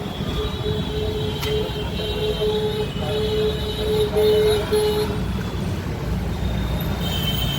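An engine running steadily with a low rumble, a thin steady whine over it for the first five seconds, and a single metallic click about a second and a half in.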